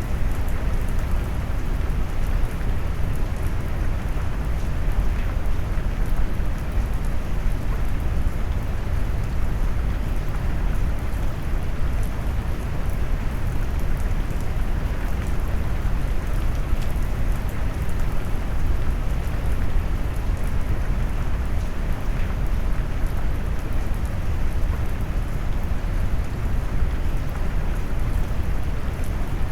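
Steady rain noise, low and warm with the treble rolled off, like brown noise, with faint patters of individual drops.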